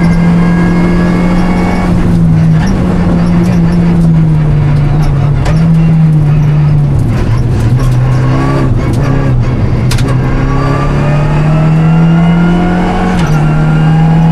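Renault Clio Rally5's engine heard from inside the car at rally pace, its revs rising and falling through gear changes and braking, then climbing steadily under hard acceleration before an upshift drops the revs near the end. A single sharp click comes about ten seconds in.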